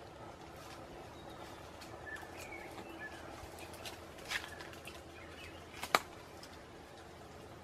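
Forest ambience with a few faint bird chirps, broken by short sharp clicks or snaps; the loudest comes about six seconds in.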